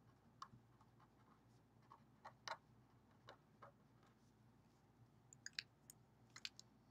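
Near silence with faint, scattered taps and scratches of a marker writing on a paper card, plus a few small clicks near the end as the pen is lifted away.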